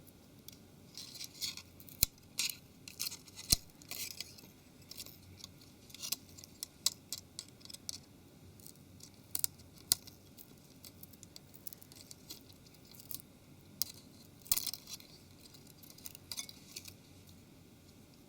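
Small tools and parts of a Nokia 701 smartphone being handled during disassembly: irregular sharp clicks and brief scrapes of plastic and metal, the loudest clicks about two and three and a half seconds in.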